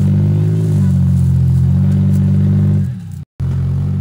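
Rock-crawler buggy's engine running hard under throttle as it climbs a rock ledge, its pitch rising and easing slightly. Near the end the sound dips, cuts out briefly, then comes back.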